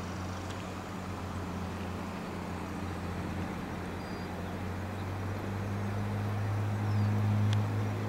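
Steady low hum of a motor vehicle engine running nearby, over a light hiss of traffic or wind, growing a little louder after about five seconds.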